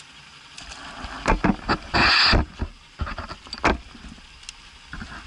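A string of sharp knocks and clatters from fishing gear being handled on a small boat, with a brief loud rush of noise about two seconds in and a few more clicks after it.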